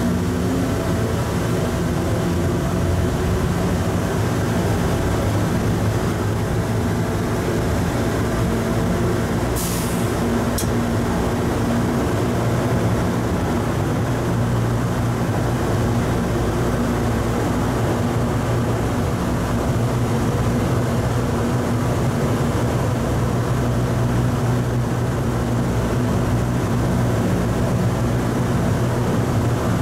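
Hartsfield-Jackson Plane Train, a rubber-tyred automated people mover, heard from inside the car as it runs through the tunnel: a steady motor hum over rolling rumble. The hum rises briefly in the first second as the train picks up speed. A short hiss comes about ten seconds in.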